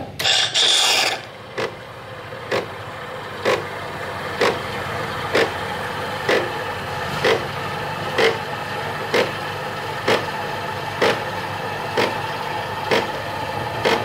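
Morphy Richards Kaffeto espresso machine frothing and dispensing milk for a latte: a short loud hiss in the first second, then a steady pump hum with a sharp pulse about once a second.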